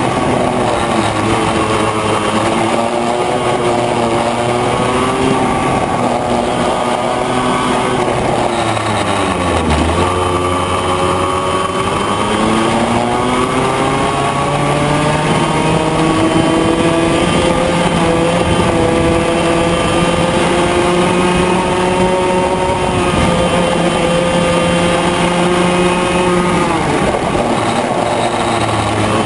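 Yamaha KT100J 100 cc two-stroke kart engine running at racing revs. The pitch falls steadily as the kart slows, reaching its lowest about ten seconds in, then climbs under acceleration and holds high, drops again near the end and picks back up.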